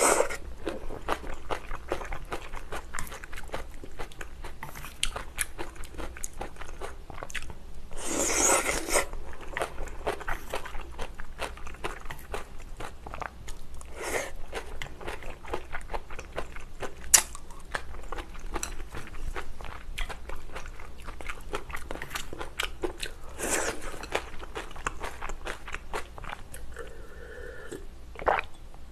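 Close-miked wet chewing and smacking of stir-fried glass noodles, with two longer slurps, one about eight seconds in and one past twenty seconds. Near the end, a gulp of drink.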